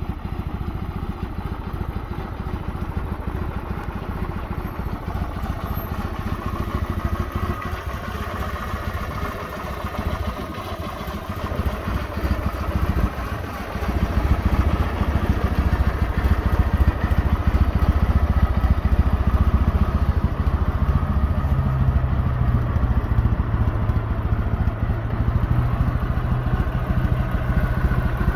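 Kawasaki W650's air-cooled parallel-twin engine idling steadily, growing louder about halfway through.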